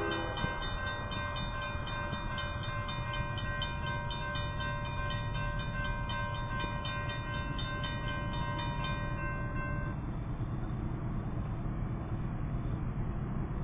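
Railroad crossing warning bell ringing steadily while the crossing gates lower, cutting off about ten seconds in once the gates are down. A steady low rumble runs underneath.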